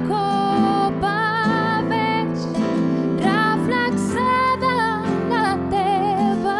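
A slow song: a woman singing held notes with vibrato over acoustic guitar accompaniment.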